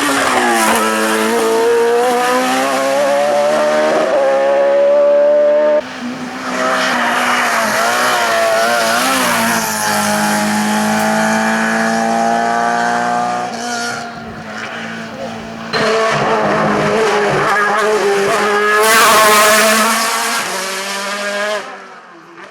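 Race car engine running hard at high revs, its pitch climbing and dropping back again and again as it works through the gears, loudest near the end.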